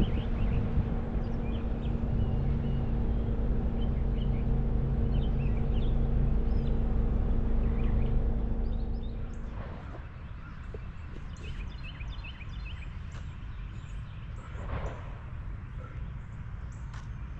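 A car creeping along a paved road with a steady low engine hum, which drops away about ten seconds in. Songbirds chirp throughout and are plainer once the hum has faded.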